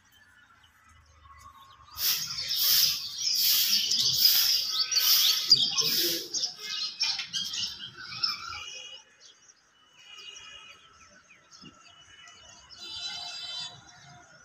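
Birds chirping and calling loudly in a quick run of repeated high calls for about six seconds, then fainter, sparser chirps.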